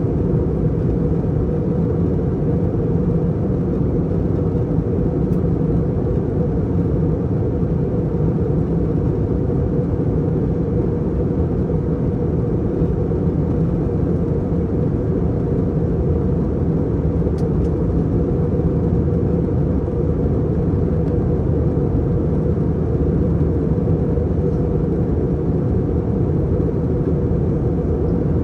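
Steady cabin noise inside an Airbus A321 in flight: an even low drone of the engines and the air rushing past the fuselage, with no changes.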